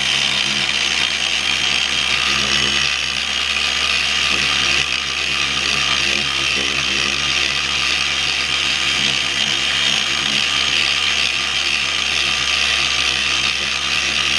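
Dual-action orbital polisher running steadily with a foam buffing pad pressed against a carbon fiber part, a constant electric-motor whine.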